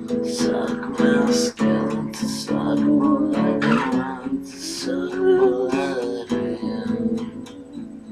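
Acoustic guitar strummed in a steady rhythm, chords ringing. For a few seconds in the middle a voice sings over it, with a wavering held note.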